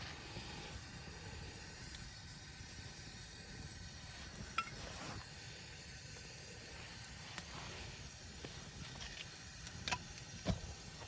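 Steady hiss of outdoor background noise with a few scattered light clicks and knocks, the sharpest about ten and a half seconds in.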